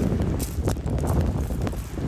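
Wind buffeting the microphone, a loud uneven low rumble, with a few scattered crunching clicks of footsteps on beach pebbles.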